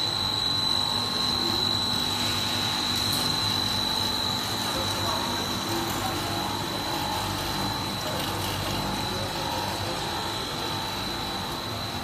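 Automobile sealing strip extrusion line running: a steady machinery hum and noise with a constant high-pitched whine.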